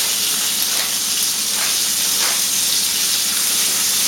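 Chicken pieces frying in a very hot pan with a little oil: a steady sizzle with occasional small spits.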